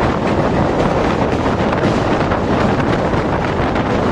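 Passenger train running across a steel truss bridge, its wheels rumbling on the rails, recorded from a moving coach with strong wind blowing on the microphone. The noise is loud and steady throughout.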